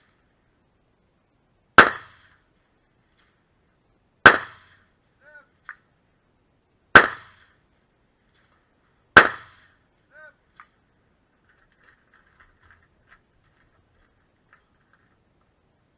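Four AR-15 rifle shots fired singly, about two to three seconds apart, each a sharp crack with a short echo. Faint metallic pings come about a second after the second and the fourth shot.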